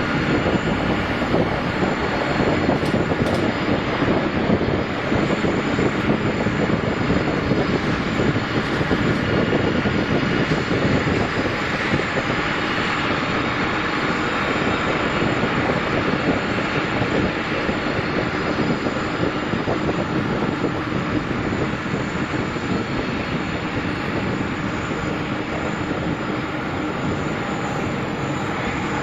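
Jet airliner engines running, a steady loud wash of jet noise that eases slightly in the second half.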